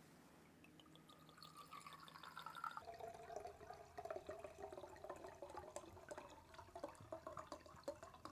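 White wine poured from a glass bottle into a wine glass: a faint trickle at first, turning into louder gurgling with small splashes from about three seconds in as the glass fills.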